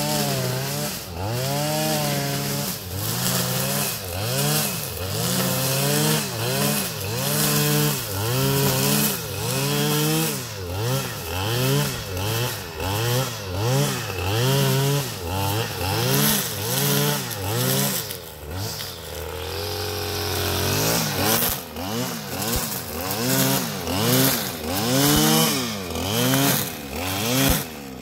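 Husqvarna 535RX brushcutter's 34.6 cc two-stroke engine spinning trimmer line through cow parsley, its pitch swelling up and falling back about once a second as the throttle is worked with each sweep. About two-thirds of the way through it drops to a lower steady note for a couple of seconds, then the swells resume.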